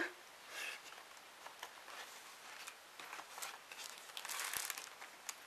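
Faint rustling and crinkling of packaging as craft items are handled and pulled out, with a few light clicks and a louder rustle about four seconds in.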